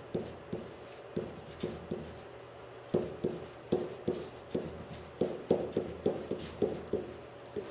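Pen tapping and knocking against an interactive whiteboard's surface while handwriting: a string of irregular short taps, with pauses between the strokes.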